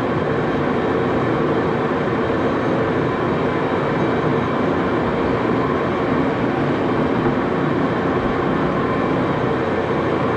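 Axelson engine lathe running steadily at about 351 RPM with the thread-cutting gear train engaged, during a threading pass on a small 8-32 screw.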